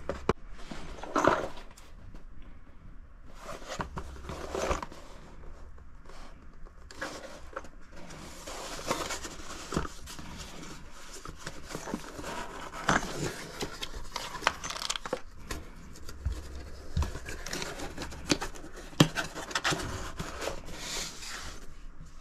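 Handling noise from cardboard gun boxes and a stainless revolver: scraping and rustling of box and packing, with scattered light clicks and knocks, the sharpest just after the start and about three quarters of the way in.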